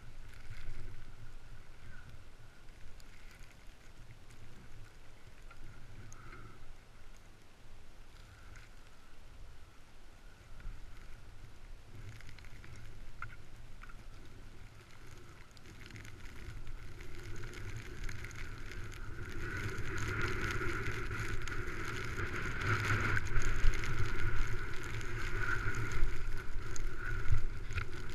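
Skis sliding over snow with wind rumbling on the microphone, growing louder from about halfway through as the skier gathers speed.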